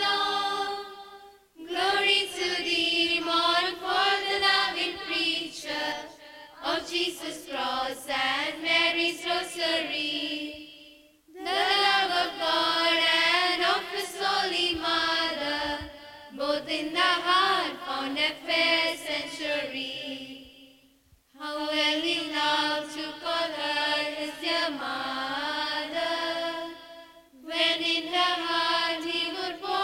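Mixed choir of teenage boys and girls singing in phrases of about four to five seconds, broken by short pauses for breath.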